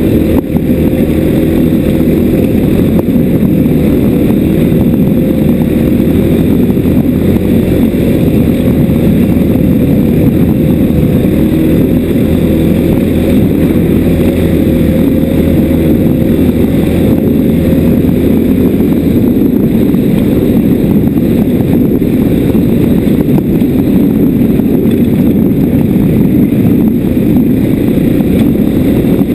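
Motorcycle engine running steadily as the bike is ridden slowly along a rough dirt track; its deepest note eases off about two-thirds of the way through.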